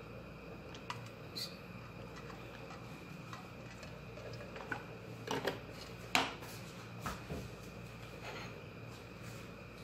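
Stainless-steel pot with a little oil heating on a stove set to medium: a scattered run of light metallic ticks and clinks, the loudest about six seconds in, over a steady low hum.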